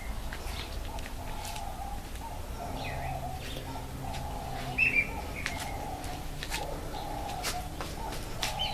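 Birds calling: a fledgling turtle dove gives a steady series of short, low calls, about one or two a second, as it calls for its parent. Sharper chirps from other birds sound over it, the loudest a quick double chirp about five seconds in.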